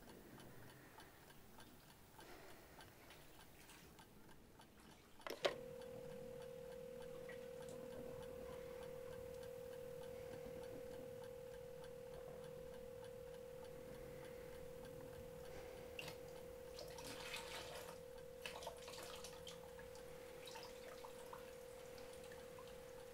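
Faint, even ticking, then a sharp click about five seconds in, after which a single steady pure tone sets in and holds, a tense sound-design drone under the silent scene.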